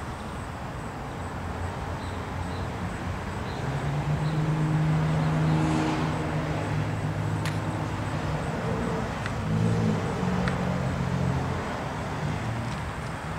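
Background traffic noise, with a vehicle engine's low hum swelling from about four seconds in and fading after about eleven seconds.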